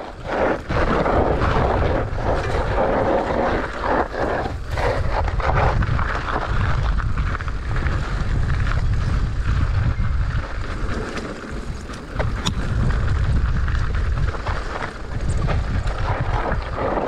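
Wind buffeting the camera microphone during a fast mountain-bike descent on loose dirt, a steady low rumble. Short knocks and rattles from the bike hitting bumps are scattered through it.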